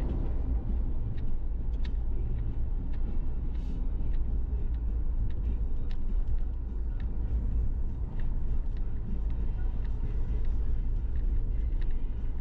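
Suzuki Jimny driving: a steady low rumble of engine and road, with light clicks scattered through it.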